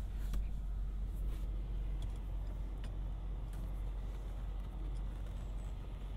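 Steady low hum inside a parked car's cabin, with a few faint clicks.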